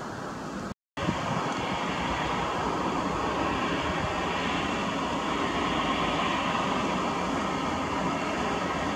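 Airbus A320-214's CFM56 turbofan engines running at taxi power: a steady jet whine and rumble. The sound cuts out for a moment about a second in, then returns evenly.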